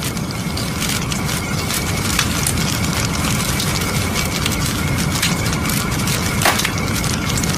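Crackling fire sound effect: a steady rush of noise dotted with many sharp crackles, with one louder pop about six and a half seconds in.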